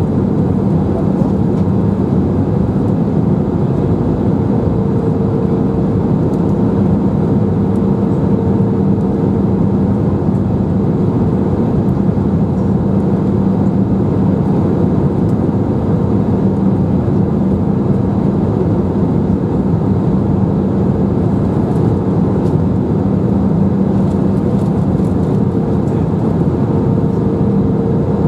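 Airbus A319 cabin noise heard from a window seat: a steady drone of the jet engines and rushing airflow with an even low hum, unchanging throughout.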